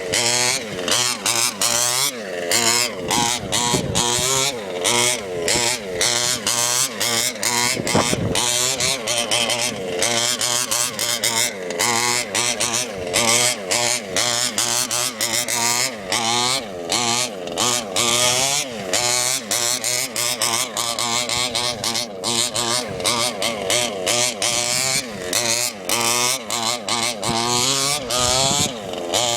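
Small two-stroke petrol engine of an FG large-scale RC car, revved over and over with many quick throttle blips, its pitch rising and falling each time, with its carburettor set rich.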